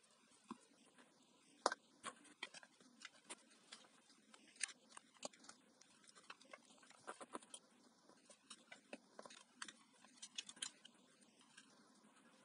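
Scattered small clicks and taps of hand-blender parts being handled as the replacement motor is fitted back into the Arzum Speedmix AR1013's plastic housing. The loudest single click comes just under two seconds in.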